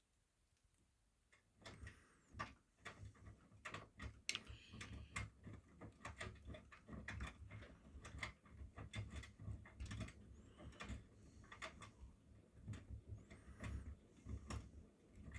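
Miele washing machine running: a faint low rumble of the turning drum with irregular clicks and knocks, starting about a second and a half in.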